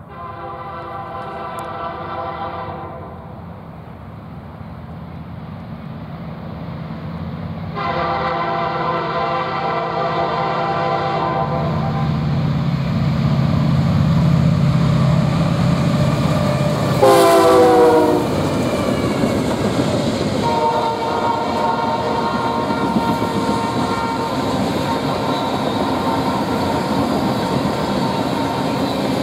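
Freight train's lead locomotive, a CN SD75I, sounding its horn in the grade-crossing pattern: long, long, short, long. The short blast drops in pitch as the locomotive passes at speed. The diesel rumble is loudest as the three locomotives go by, then covered hopper cars roll past while the horn holds its last long note.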